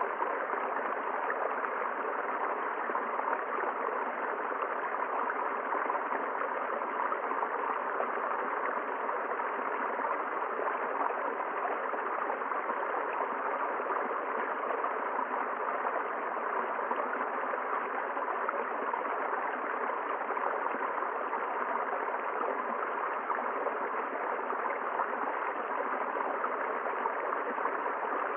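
A river flowing: a steady, unbroken rush of water.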